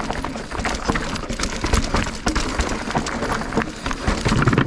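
Mountain bike riding over a rocky dirt trail: tyres crunching and the bike clattering and rattling, with a few heavier knocks, the strongest near the end.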